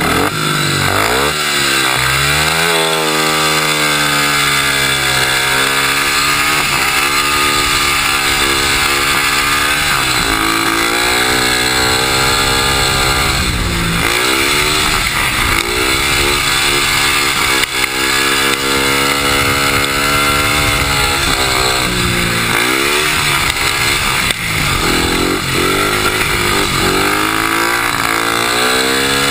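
Speedway bike's 500cc single-cylinder methanol engine at full race speed, heard up close from the rider's chest. Its pitch climbs and falls over and over as the throttle is opened and backed off lap after lap, over a steady rush of wind noise.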